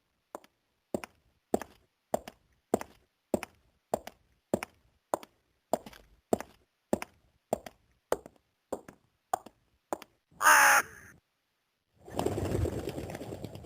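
Evenly spaced sharp knocks, a little under two a second, that stop about ten seconds in. A single loud, harsh, caw-like call follows, then a burst of rumbling noise near the end.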